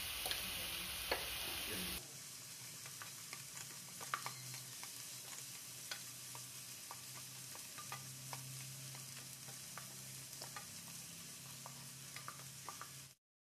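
Chopped onions sizzling in hot coconut oil in a pan as they brown, stirred with a spoon that clicks against the pan now and then. The level drops about two seconds in, and the sound cuts out briefly near the end.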